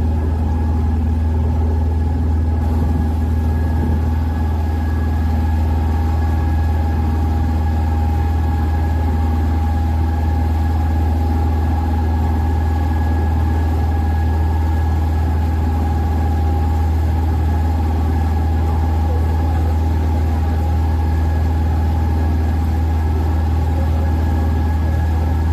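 Open tour boat's engine running steadily underway, heard from on board: a constant deep drone with a steady higher whine over it.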